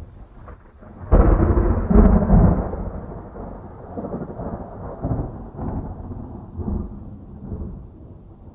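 A thunderclap breaks suddenly about a second in, loudest over the next second or so. It then rolls on as a low rumble that swells several more times and slowly fades.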